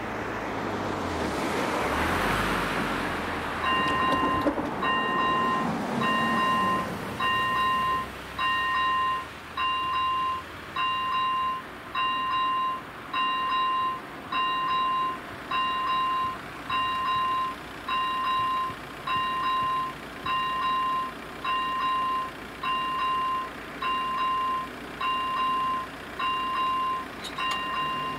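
A car drives over the crossing. About four seconds in, the level-crossing warning's electronic bell starts, a ringing tone switching on and off about once a second.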